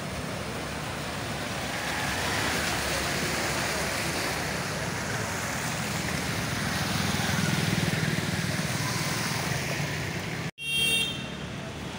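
Motorbikes riding through floodwater on a street, engines running under the swish of water thrown up by their tyres, growing louder as they pass. Near the end the sound cuts out for an instant, followed by a short, high horn toot.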